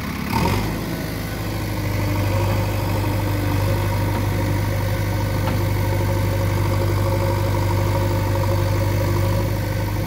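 JCB 3DX backhoe loader's diesel engine working the hydraulics as the backhoe arm lifts a large log, a steady drone that rises in level about two seconds in and then holds. A brief clunk about half a second in.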